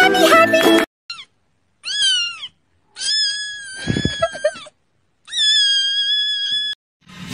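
A kitten meowing loudly four times in a high voice: a short call, a rising-then-falling one, then two long drawn-out cries. Music cuts off about a second in and comes back right at the end.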